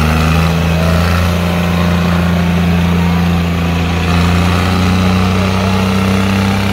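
The diesel engines of a John Deere and a Farmtrac 6055 tractor are running hard at full load, pulling against each other on a chain. Together they make a steady, loud, low engine note.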